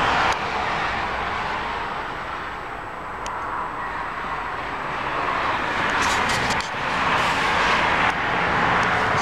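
Steady outdoor noise like the roar of passing vehicles, easing off about three seconds in and swelling again in the second half.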